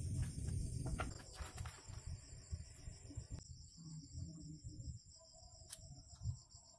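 Insects trilling steadily in a high, finely pulsed chorus, over a low rumble that fades about a second in. A few faint clicks and scrapes come from a craft knife cutting a switch hole into a black plastic lid.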